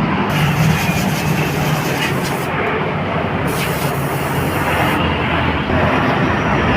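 Yamaha Vega R motorcycle's single-cylinder four-stroke engine running steadily, with a low hum under a loud rushing noise.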